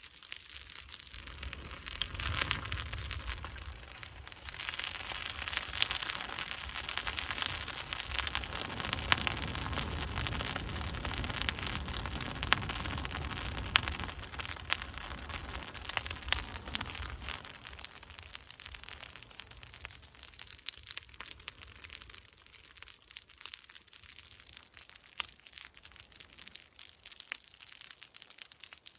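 A pile of burning straw and leaves crackling and popping steadily in an open fire. A low rumble comes in about two seconds in and fades out after about seventeen seconds, leaving the crackle quieter.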